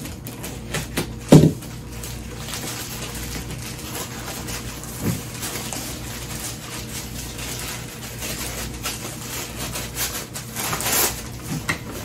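A plastic poly mailer bag being slit open and handled, with crinkling and rustling and small clicks throughout. A single sharp knock comes about a second and a half in, and a softer one near the middle.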